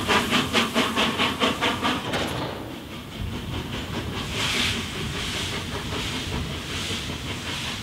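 Steam locomotive working hard, its exhaust chuffing in quick even beats, about five a second, that stop about two seconds in; a softer hiss with slow swells follows.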